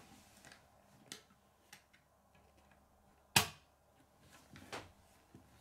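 Plastic K'nex pieces clicking as they are fitted together on a wooden tabletop: a few light clicks, one sharp click about three and a half seconds in, and a softer one a second later.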